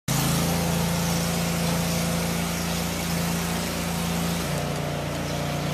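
An engine running steadily at a constant pitch, dropping slightly in pitch about four and a half seconds in, with a steady hiss over it.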